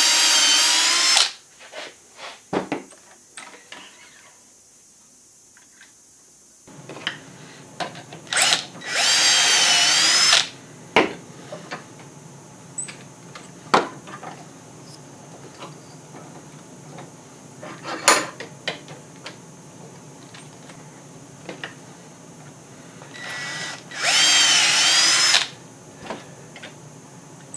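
Cordless drill boring quarter-inch dowel holes into wood through a metal doweling jig: three short bursts of drilling, at the start, about 9 s in and about 24 s in, each lasting a second or two with the motor's whine rising and falling. Short knocks of wooden pieces and the jig being handled come between the bursts.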